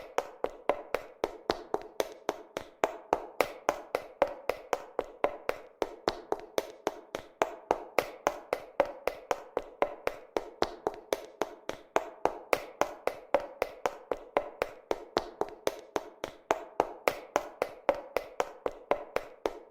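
Footsteps of someone running in heeled shoes: a fast, even run of sharp heel clicks, about four to five a second.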